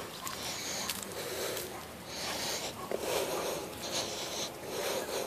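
Heavy breathing close to the microphone of someone walking, a breath roughly every second.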